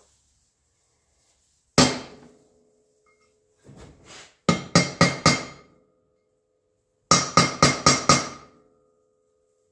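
Ball-peen hammer tapping a small hand tool held against a spoke of an alloy wheel: one blow, then a quick run of four and then of six, about five a second, the metal wheel ringing after the blows.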